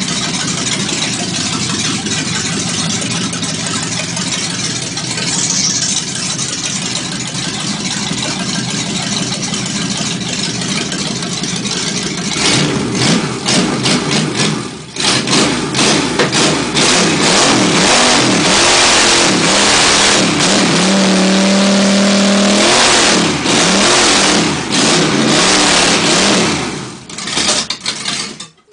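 Chevrolet 327 small-block V8 with a lumpy camshaft, idling steadily at first, then revved hard over and over from about halfway, rising and falling and held high for several seconds before cutting off abruptly near the end.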